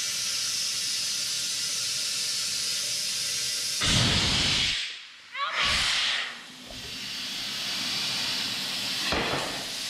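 Compressed air hissing steadily while a tire is aired up to seat its bead with an air tank, broken by louder rushes of air about four and five and a half seconds in and again near the end.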